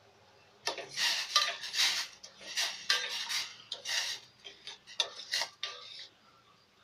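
A spoon stirring sugar and water in a stainless steel pot, scraping and clinking against the pot's sides in quick repeated strokes. It starts about a second in and stops shortly before the end.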